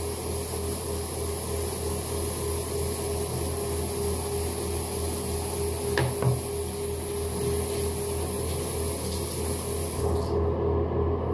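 Synthetic shaving brush being worked into a tub of shaving soap to load it: a steady scratchy rubbing.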